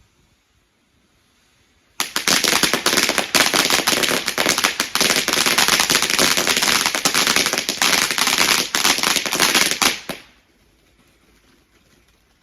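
Garden firework going off in a loud, dense run of rapid crackling cracks, starting abruptly about two seconds in and cutting off suddenly about eight seconds later.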